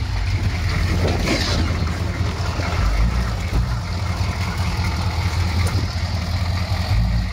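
Chevrolet K5 Blazer's 6.2-litre V8 diesel engine running steadily, without revving up or down, as the truck crawls over rocks.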